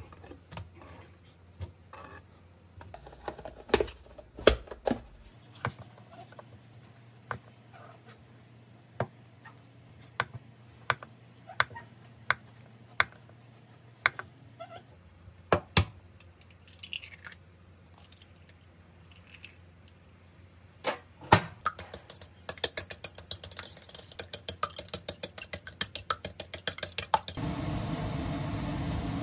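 Kitchen knife cutting canned Spam on a plastic cutting board: separate knocks of the blade on the board, a second or two apart, then a quicker run of clicks and taps near the end. In the last two seconds a steady hum comes in.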